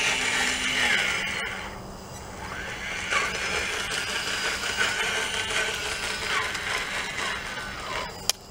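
RC model Caterpillar 966E wheel loader's electric motors whining. The pitch rises and falls in several sweeps as it drives with a loaded bucket and lifts it. A sharp click comes near the end.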